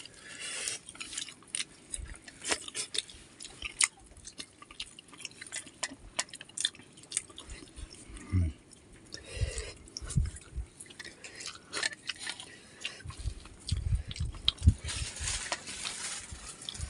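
Eating by hand: close chewing and wet mouth smacks, with irregular small clicks and soft knocks as grilled fish and rice are picked apart with the fingers.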